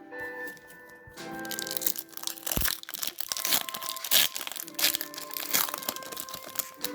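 Foil booster pack wrapper crinkling as it is handled and torn open, starting about a second in, a dense irregular crackle. Background music plays under it.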